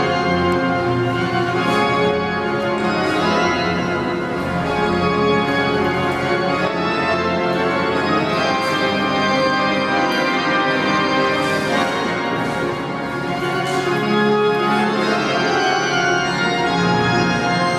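Church organ playing full, held chords, many notes sounding at once, changing every few seconds.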